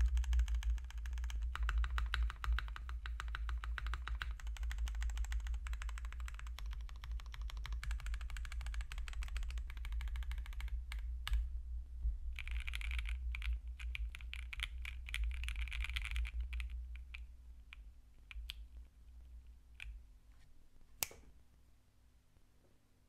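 Fast continuous typing on a QK60 mechanical keyboard with stock Emogogo Hybrid Black switches on an FR4 plate with plate foam, TX stabilizers and DMK keycaps. The rapid keystrokes thin out after about sixteen seconds to a few scattered clicks, with one sharp click near the end.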